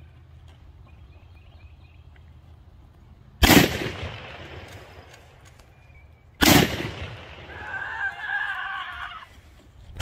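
Two 7.62x54R Mosin-Nagant bolt-action rifle shots about three seconds apart, each a sharp crack with a fading echo; after the second a voice calls out briefly.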